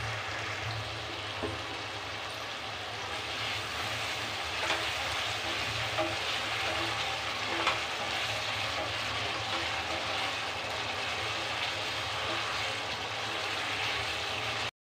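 Tomato-and-spice masala frying in hot oil in a steel pan, a steady sizzle, with a wooden spatula stirring it and a few sharp clicks of the spatula against the pan around the middle.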